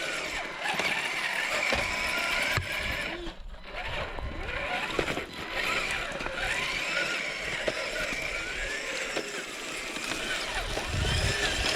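RC4WD Trailfinder 2 1/10 scale crawler's electric motor and gearbox whining as it crawls, the pitch gliding up and down with the throttle, with scattered knocks of the chassis and tyres on the terrain.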